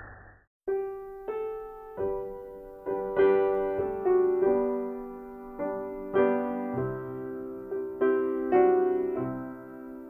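Slow piano music: single notes and small chords struck one after another, each ringing out and fading, starting about half a second in.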